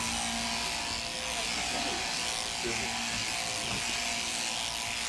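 Sheep-shearing handpiece running steadily, a constant buzzing whir as the clippers cut through a sheep's fleece.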